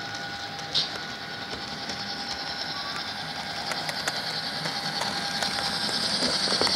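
Model diesel locomotive in NSWGR livery running along the layout, its motor and gears whining with wheels ticking on the rails, growing louder as it approaches. A short high squeak sounds about a second in.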